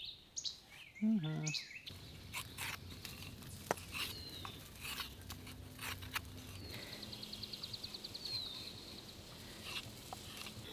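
Songbirds chirping, with one rapid trilled song lasting about two seconds about two-thirds of the way through.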